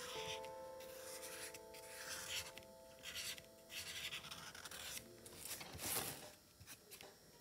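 Felt-tip marker drawing on cardboard in short, faint, irregular strokes. The tail of a held music chord dies away in the first second or two.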